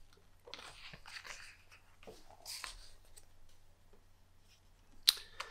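Page of a large photo book being turned: two soft paper rustles in the first three seconds, then a short sharp click near the end.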